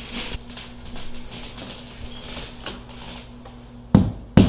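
Claw hammer knocking a plastic wall anchor into drywall: two sharp knocks near the end, after a few seconds of faint clicks and handling noise.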